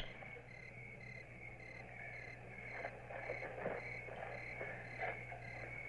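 Crickets chirping in an even, pulsing rhythm over a low steady hum, with scattered footsteps and shuffling on dirt starting about halfway through.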